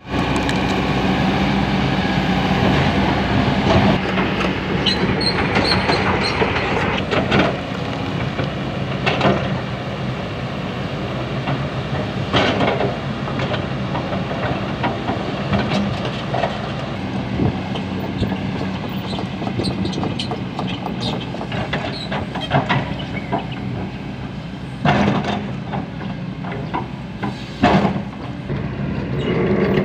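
Kobelco SK200 hydraulic crawler excavator's diesel engine running steadily at work, with scattered sharp clanks and knocks from the machine as it moves debris. The loudest knocks come twice near the end.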